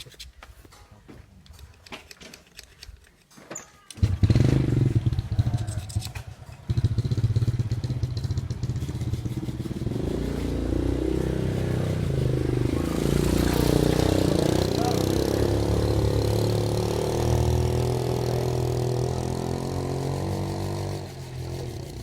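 Motorcycle engine starting about four seconds in after some faint clicks, catching unevenly at first, then running steadily from about seven seconds in. The revs rise and fall between about ten and fifteen seconds in, and it settles lower near the end.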